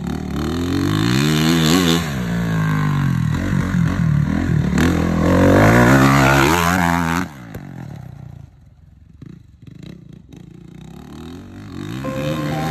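Dirt bike engine revving up and down as the bike rides past close by, loudest just before the sound suddenly drops about seven seconds in, then fainter as it rides off.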